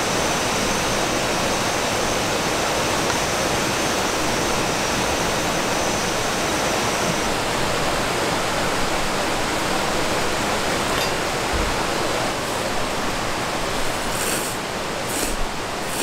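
Steady rush of a fast mountain stream tumbling over rocks, mixed with heavy rain. A few light clicks near the end.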